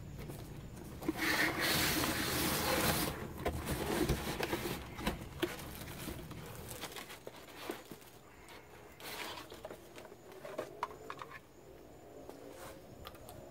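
Cardboard box and its packing rustling and scraping as parts are lifted out by hand, loudest for the first few seconds, followed by quieter handling with a few sharp knocks.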